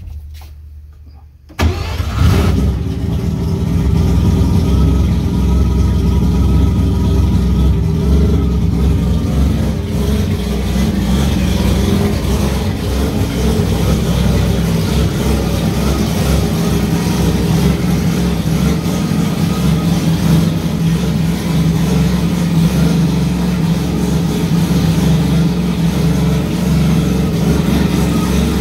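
Three-rotor rotary engine of an RX8 drift car on a cold start after weeks of sitting: it fires about a second and a half in, then runs at a loud, steady idle.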